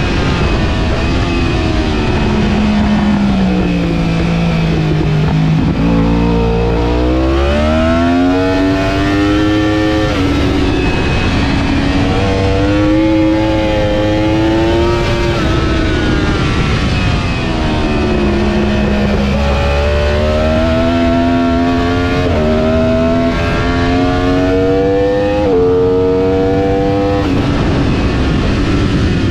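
Sportbike engine heard from on board at track speed, with steady wind noise. The revs fall twice as the bike slows, and in between climb hard, the pitch dropping suddenly at each quick upshift.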